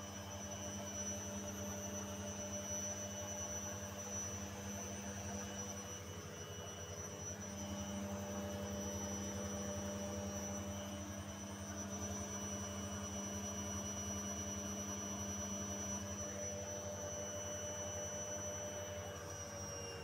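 Beko front-loading washing machine running: a steady motor hum with a thin high whine, the pitch sagging slightly near the end as the drum slows.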